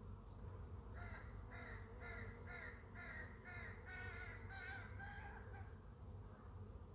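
A bird calling a quick run of about nine short calls, roughly two a second, starting about a second in and stopping a little past the middle.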